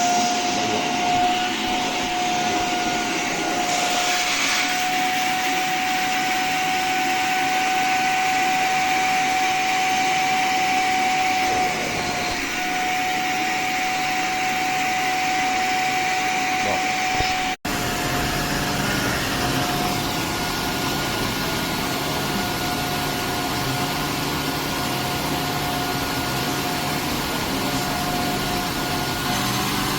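Kärcher SE 3 Compact spray-extraction vacuum cleaner running: a steady motor whine over the rush of suction air. The sound cuts out for an instant a little past halfway, then runs on.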